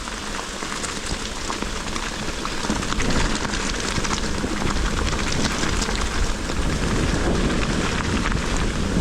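Pouring rain, with many sharp drop hits close by over a low rumble; the sound grows a little louder about three seconds in.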